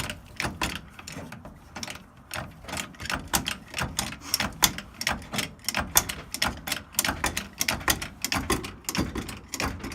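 Jack being pumped to raise the truck, a rapid run of metallic clicks and clunks, several a second, with each stroke of the handle.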